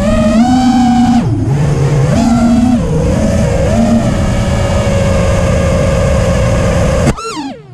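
Quadcopter drone's electric motors whining, the pitch rising and falling with the throttle and holding steady for a few seconds in the middle. Near the end the throttle is cut: the whine falls steeply in pitch and goes quieter.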